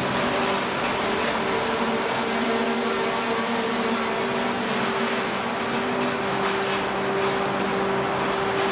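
Renfe passenger train at the platform, its onboard machinery running with a steady hum on two constant pitches over an even hiss. A few light clicks come in near the end.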